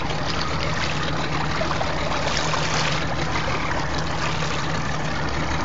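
Small boat's motor idling steadily, with water sloshing and trickling around the hull.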